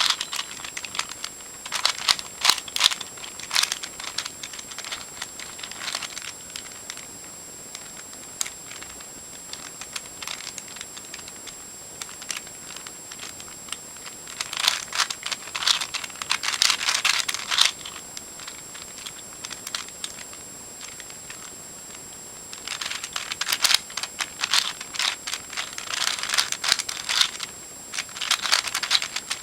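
Plastic Eastsheen 4x4 puzzle cube being turned quickly while its edges are paired, its layers clicking and clacking in bursts of rapid turns with short pauses between.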